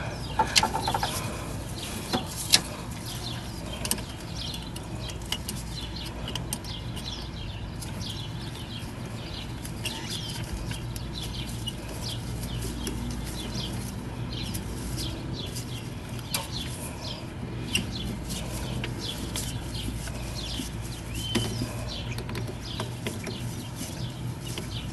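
Scattered clicks, taps and rustling as gloved hands fit a coolant hose back onto a heat transfer valve and tighten its hose clamps with a screwdriver, over a steady low hum.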